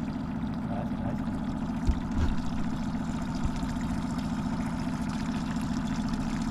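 Boat's outboard motor running steadily at trolling speed, with a single low thump about two seconds in.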